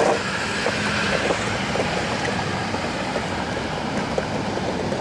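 Longboard wheels rolling fast over concrete paving: a steady rumble with small clicks from the seams and grit, and wind rushing over the microphone.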